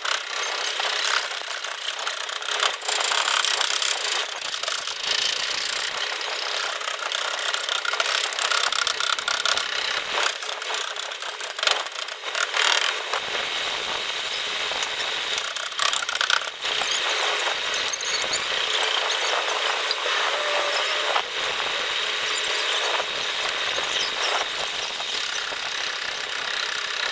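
Continuous rubbing and scraping with squeaks and small clicks, from tools worked against a car's rear fender panel during paintless dent repair.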